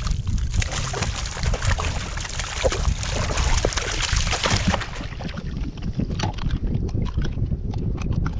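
Wind buffeting the microphone in a steady low rumble, with a few seconds of splashing water as a hooked porgy is brought to the side of the kayak, followed by scattered light clicks and taps.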